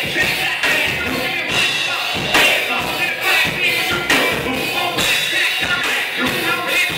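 Live band playing with singers on microphones, a steady beat about twice a second under the vocals.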